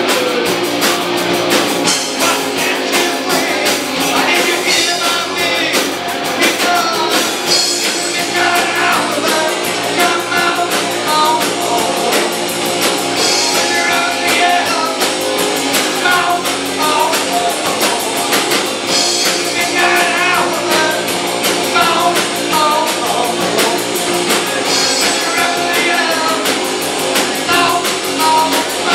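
Live rock band playing: electric guitars and a drum kit, with a singer's voice over the top.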